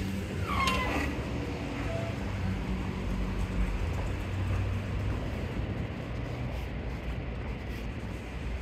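City street traffic: the low, steady rumble of a car driving past. A brief falling squeak comes about half a second in.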